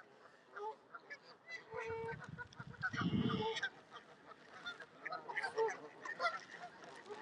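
A flock of Canada geese honking and calling in short, scattered calls, with a louder call about three seconds in.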